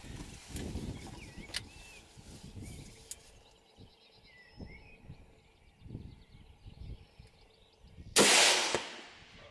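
Faint bird chirps over a low wind rumble, then, about eight seconds in, a single loud hunting rifle shot whose report dies away within about a second.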